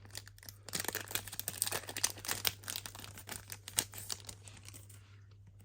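Trading card booster pack wrapper crinkling and tearing as it is opened by hand: a dense run of small crackles that dies away near the end.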